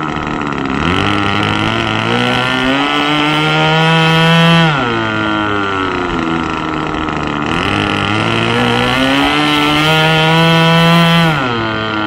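Nitro glow engine of a Seagull Boomerang V2 model plane run up from idle to full throttle twice, its pitch climbing slowly over about three seconds each time and then dropping sharply back to idle, about halfway through and again near the end. The slow, sluggish pick-up from idle is put down to the bottom-end needle valve setting.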